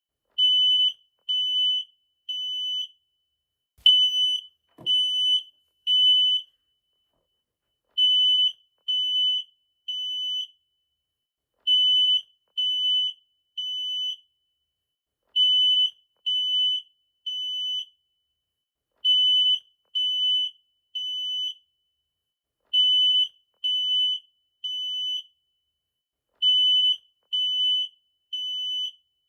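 Smoke detector alarm sounding the temporal-three fire evacuation signal: high-pitched beeps in groups of three, each group followed by a short pause, repeating steadily. There is a brief click at the start of the second group.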